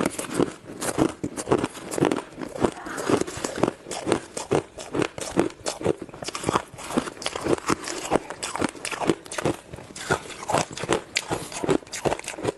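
Ice being bitten and chewed close to the microphone: a fast, irregular run of loud crunches and cracks, several a second.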